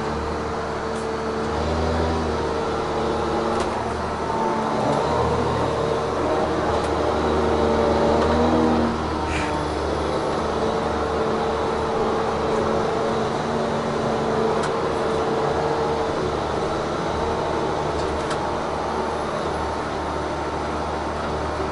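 Tigercat 1075B forwarder heard from inside its cab: the diesel engine drones steadily under a hydraulic whine that comes and goes as the crane and grapple are worked. It is louder for a few seconds near the middle, with a few faint clicks.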